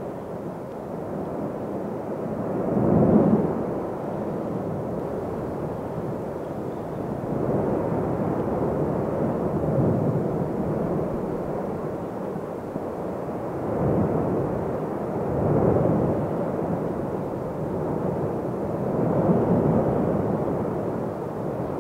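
Deep rumble of the Cumbre Vieja volcano erupting, with lava fountaining, swelling in surges every few seconds; the strongest surge comes about three seconds in.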